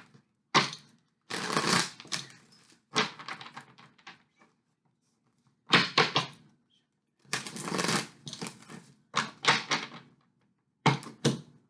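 Tarot cards being shuffled and laid down on a table: a series of short, crisp bursts with brief gaps between them.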